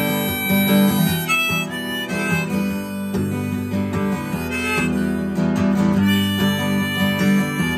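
Harmonica playing a melody of held notes over acoustic guitar accompaniment: an instrumental break between sung verses.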